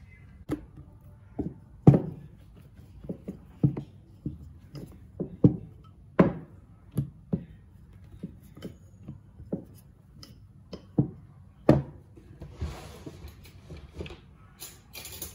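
Rolling pin knocking and thudding on a silicone pastry mat while a ball of poli dough is rolled out flat, in irregular knocks about one to two a second. A short rustling hiss near the end.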